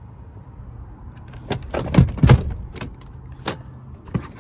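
A quick run of clicks, knocks and light rattles, loudest about two seconds in, from someone handling things and moving about inside an SUV's cabin, over a low steady hum.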